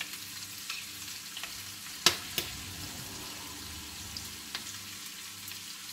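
Sliced chicken frying in hot oil with garlic and onion in a wok: a steady sizzle with small pops, and two sharp knocks about two seconds in as the chicken goes into the pan.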